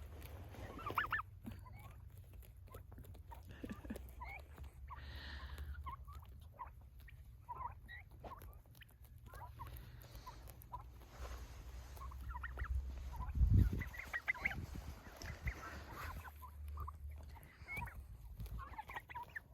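Royal Palm turkeys making many short, scattered chirping calls over a steady low rumble, with one brief loud thump about two-thirds of the way through.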